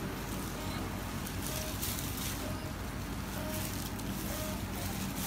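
Steady machine whir with a low hum underneath, unchanging throughout.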